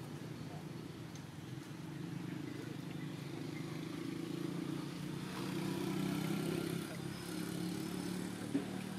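A motor vehicle engine running at a distance, a steady low hum that grows louder about five seconds in and then eases off. A single sharp click sounds near the end.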